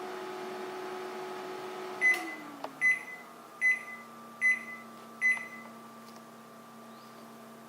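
Panasonic NN-GD392S microwave oven running with a steady hum that winds down, falling in pitch, about two seconds in as the cycle stops, then five short high beeps just under a second apart signalling the end of cooking. A fainter steady hum carries on after the beeps.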